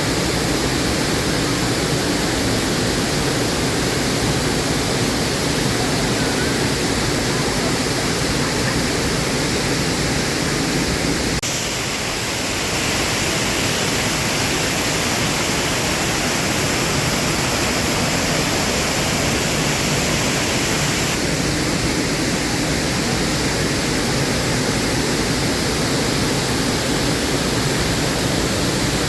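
Waterfall rushing, a loud steady noise of falling water. Its tone shifts abruptly about 11 seconds in and again near 21 seconds.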